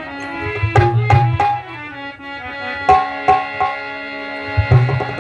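Tabla playing a lead-in, with deep bass-drum strokes and sharper treble strikes, over steady held harmonium chords.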